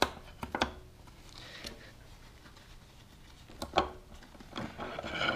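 Metal parts clinking and knocking inside a Ford E4OD automatic transmission case as they are worked loose by hand: a few separate strikes, some ringing briefly, the loudest at the start and again a little before four seconds in, with a quick flurry of smaller knocks near the end.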